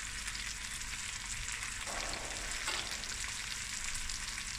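Whole fish and sliced onions shallow-frying in hot oil in a stainless steel pan, sizzling steadily. The fish is fried crisp.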